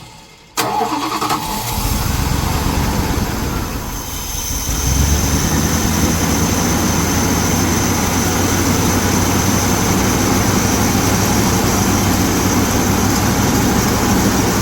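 1976 Dodge D200 pickup's engine cranked by the starter, catching and running, then settling into steady running after about four seconds: the first start after the fuel tank was cleaned and new fuel line fitted.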